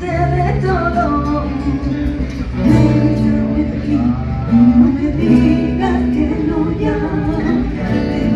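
Women singing a song together at microphones over acoustic guitar accompaniment, with held and gliding notes.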